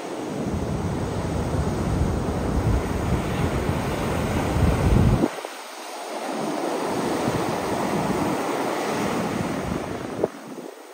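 Heavy storm surf breaking and washing up the beach, churned up by a hurricane offshore, with wind buffeting the microphone. The sound cuts off suddenly about five seconds in and resumes a moment later, lighter in the low rumble.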